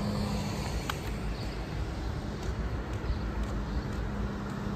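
A steady low hum at one pitch over an outdoor rumble, with a faint click about a second in.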